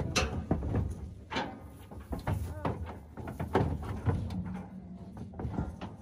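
Weaning calves moving about in a metal stock trailer: irregular knocks and clanks against the trailer's steel sides and floor.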